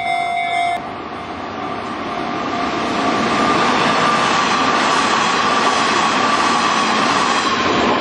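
A blue-and-white Hanshin Electric Railway train passing a level crossing at speed: a loud rush of wheels and running gear with a steady whine, building up and fading away at the end. In the first second the crossing bell is still ringing, then it cuts off abruptly.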